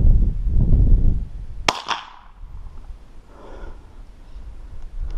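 A single loud shot from a Savage Mark II .22 rifle firing a standard-velocity, non-subsonic round: one sharp crack with a short ringing tail, a little under two seconds in. Before it, a low rumble of wind buffets the microphone.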